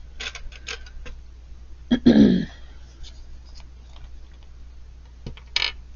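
Light clicks and taps of painting supplies being handled, with a louder thump about two seconds in and a short rustle near the end, over a steady low hum.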